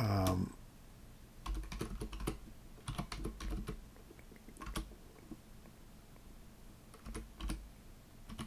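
Computer keyboard typing: short runs of keystrokes separated by pauses of a second or more.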